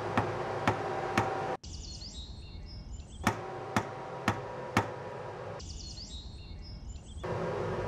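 Sharp, regular knocks, about two a second, over steady sustained tones. Twice they give way to stretches of high bird chirping, then start again.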